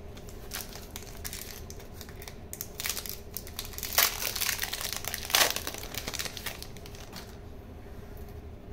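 Foil wrapper of a Pokémon booster pack crinkling as it is handled and opened, in irregular crackles, loudest about four seconds in and again about a second and a half later.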